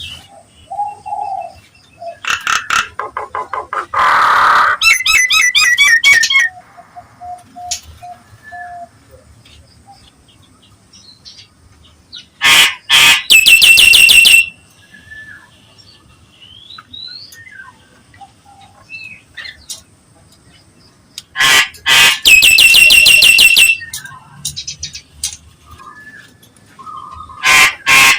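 Nias hill myna calling: loud bursts of fast repeated shrill notes, four of them, each lasting one to two seconds, with short softer whistles and slurred calls in between.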